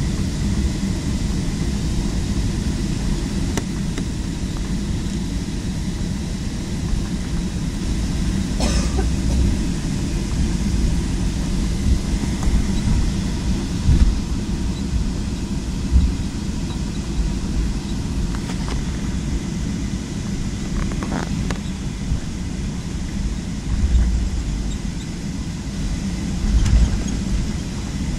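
Steady low rumble of an airliner cabin on the ground after landing, with a few short bumps and faint rattles of cabin fittings.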